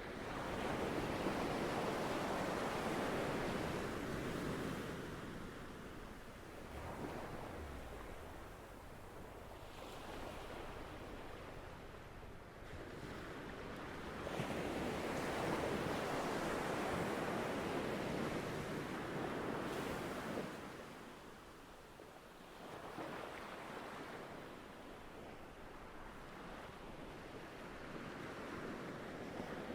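Ocean waves breaking and washing on the shore, the surf swelling and easing in long surges several seconds apart, with the loudest surges near the start and about halfway through.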